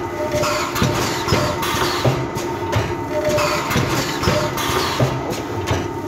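A CAM CV430 liquid vertical form-fill-seal bagger with piston pumps running through its bagging cycle with water. Repeated clacks and knocks from the jaws and pumps sound over a steady machine hum, with a short tone once per cycle, and the cycle repeats about every three seconds.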